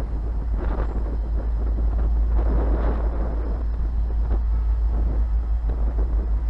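Diesel locomotive running, its engine noise swelling about two and a half seconds in, under heavy wind buffeting on the microphone. No horn sounds.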